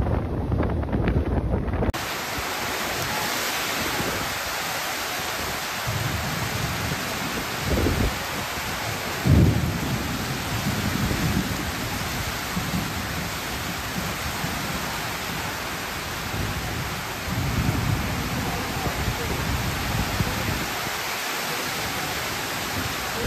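Heavy rain falling steadily, with low thunder rumbles; the loudest roll comes about nine seconds in. For the first two seconds, wind buffets the microphone from a moving train.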